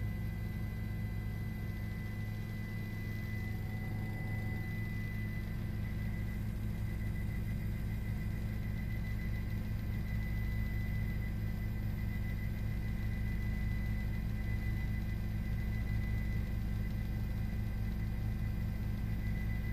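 Steady low engine drone heard from inside a vehicle, with a faint steady high whine over it, unchanging throughout.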